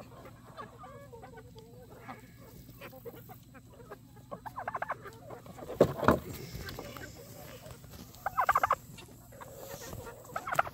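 Backyard chickens and roosters clucking close by, in several short runs of quick clucks. A sudden loud burst about six seconds in is the loudest sound.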